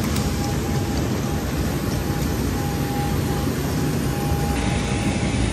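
Steady roar of jet aircraft noise on an airport apron, with a thin whine that comes and goes.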